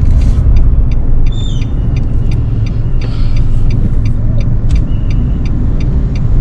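Inside a moving car: steady engine and road rumble. A light, regular ticking runs through it at about two to three ticks a second.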